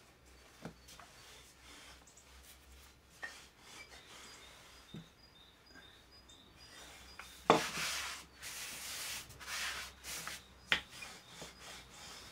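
Risen yeast bread dough being worked by hand: a few faint ticks, then from about halfway louder rubbing and scraping, with two sharp knocks.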